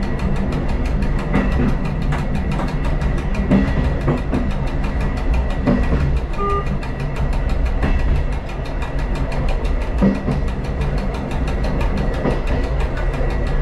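Diesel railcar running along the track, heard from the cab: a steady low rumble with a knock every two seconds or so as the wheels pass over rail joints. About halfway through comes a short tone.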